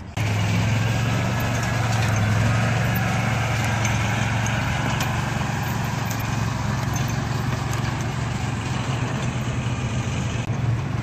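Mahindra utility vehicle's engine cuts in suddenly and runs steadily with a low, even hum as it tows a trailer loaded with a compact tractor.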